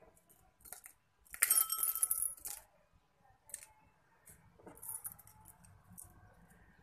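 Small craft beads clinking and rattling against a small glass jar as fingers dig into it and drop them. The clatter comes in a few short spells, the longest from about a second and a half in to about two and a half seconds.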